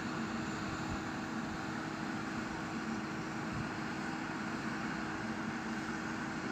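A boat's engine running steadily, a constant even drone.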